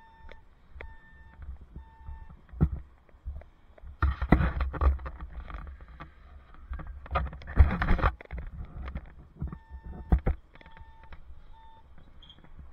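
Short electronic beeps, one even tone repeated about every 0.7 s, sound near the start and again near the end. Wind buffets the helmet-mounted microphone throughout, and a string of loud bumps and rattles from the moving bicycle peaks twice in the middle.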